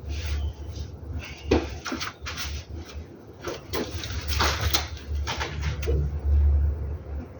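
Irregular knocks, clinks and scrapes of hands and tools working on the underside of a car, over a steady low hum.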